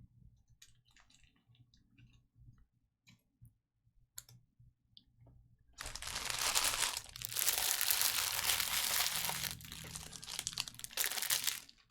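Trading-card pack wrappers crinkling and tearing as packs are opened. A few faint clicks come first, then about six seconds in a loud, uneven crinkling starts and goes on in spurts almost to the end.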